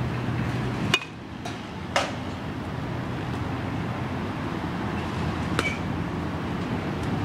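Sharp knocks of baseballs in a batting cage, three in all, the loudest about two seconds in and the last with a short ring, over steady background noise.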